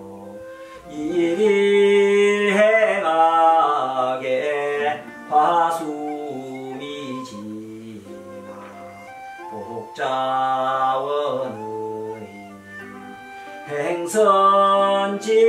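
Classical Chinese text chanted aloud in the traditional Korean seodang seongdok style by a teacher and pupils. The voices are drawn out in long, wavering held notes, phrase by phrase, with short breaks between.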